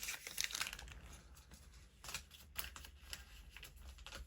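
Toy packaging and paper being handled: crinkling and rustling with scattered sharp clicks and snaps as a VTech toy is unboxed.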